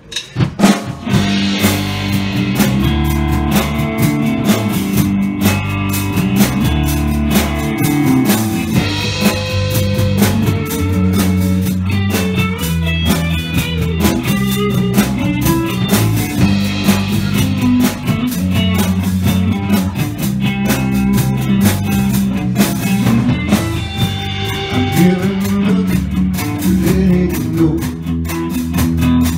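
Live blues band kicking in about half a second in and playing on: electric guitar over bass guitar and a drum kit.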